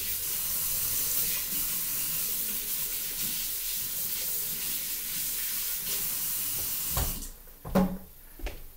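Kitchen faucet running in a steady hiss while hands are washed under it, shut off about seven seconds in. Two short knocks follow near the end.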